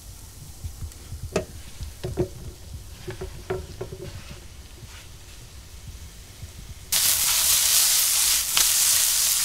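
Sliced button mushrooms and onions frying in olive oil in a hot frying pan: loud sizzling that starts suddenly about seven seconds in. Before it, a few light knocks and taps as the mushroom slices are slid off a plastic cutting board into the pan.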